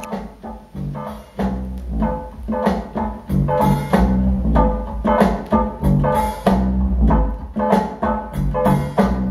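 Recorded band music played back through Audio Note AN-E/SPe HE loudspeakers and heard in the room: a steady beat over a strong bass line, growing louder over the first second and a half.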